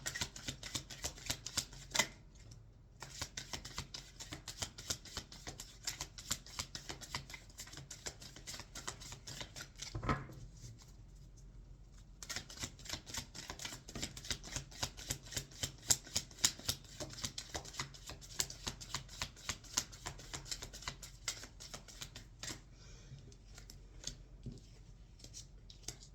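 Tarot cards being shuffled by hand: long runs of quick, dense card clicks with short pauses, and a single soft knock about ten seconds in.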